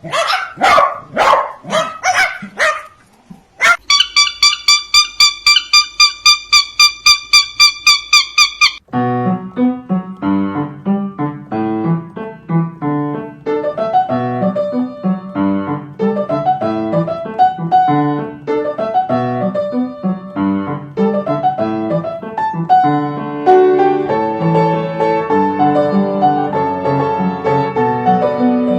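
Repeated barking for about three seconds, then a fast run of high electronic-sounding beeps, about four a second, for about five seconds. Piano music follows and fills the rest.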